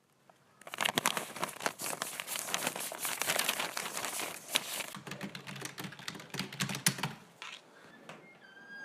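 Dense crinkling and crackling, as of a material being crumpled and handled, for about six seconds, thinning to a few scattered clicks near the end.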